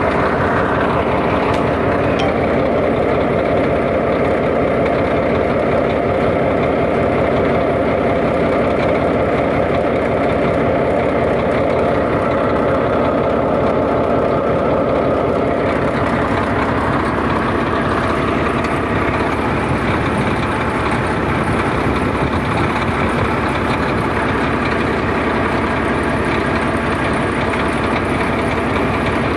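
Freshly overhauled bulldozer diesel engine running steadily with a rapid, even pulse. About halfway through, the higher part of the sound drops away and the engine note settles lower.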